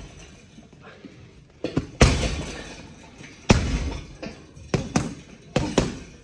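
Gloved strikes landing on a Combat Corner teardrop heavy bag, each a sharp thud that dies away quickly. A few blows come about two seconds in, another heavy one about three and a half seconds in, then a quicker run of strikes near the end.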